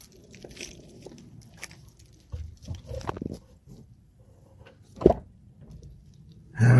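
Scattered scuffing and handling noises, then one loud, short thump about five seconds in.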